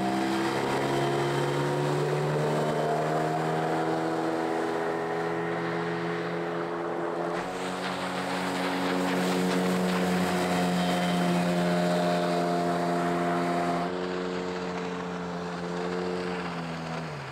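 Outboard motor running steadily at speed on a small boat under way, its pitch dropping as it throttles back near the end.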